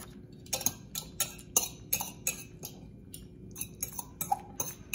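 Two metal forks clinking and scraping against a glass bowl while pulled pork is lifted out, making a run of irregular sharp ticks.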